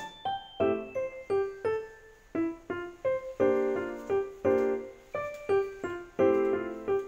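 Background music: a light tune of short, quickly fading notes and chords.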